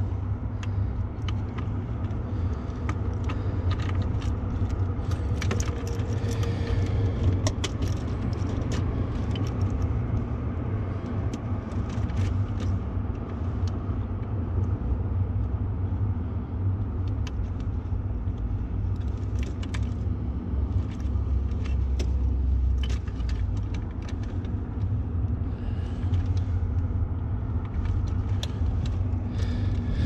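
Plastic wire-harness plugs clicking and rattling as gloved hands handle and seat them on an HVAC rooftop unit's control board, many short irregular clicks over a steady low rumble.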